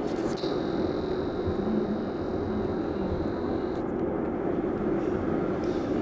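Ceiling fan converted into a Bedini SG monopole pulse motor, running with a steady hum as its coil is pulsed and the rotor spins. A thin high whine sounds over it from about half a second in until near four seconds.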